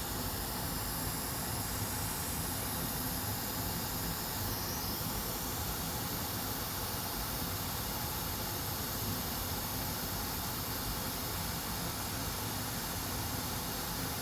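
Hot air rework station blowing a steady hiss of air set to 500 °C, heating a blown chip on a laptop motherboard to desolder it.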